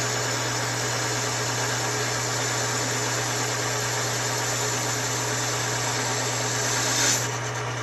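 Myford lathe running with a steady hum while a carbide tool cuts a cast iron piston-ring blank, giving a steady hiss. About seven seconds in the hiss swells briefly and then drops away, leaving the lathe running.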